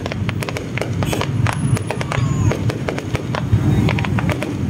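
Aerial fireworks display: shells bursting overhead in quick, irregular bangs and crackles, several a second.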